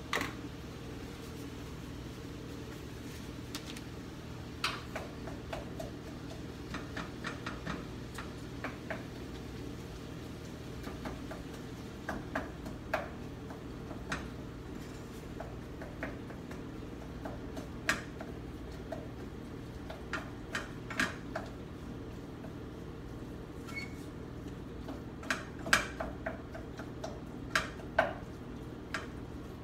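A utensil clicking and scraping against a frying pan at irregular intervals as ground beef is stirred and broken up, over a steady low hum.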